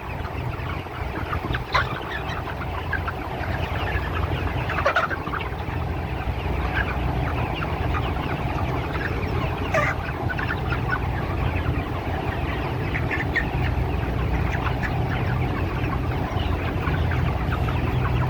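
A large flock of broiler chickens clucking and chattering continuously, many short calls overlapping, over a steady low hum.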